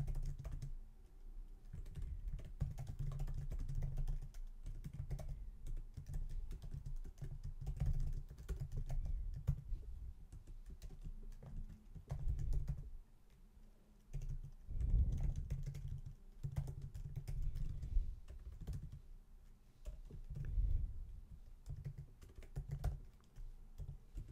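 Typing on a computer keyboard: quick runs of key clicks with a short pause about halfway through.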